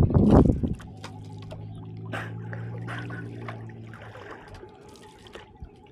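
Water trickling and dripping off a kayak paddle and around the hull, with scattered small splashes. A brief loud rush of noise opens it, and a low steady hum sounds for a few seconds before fading.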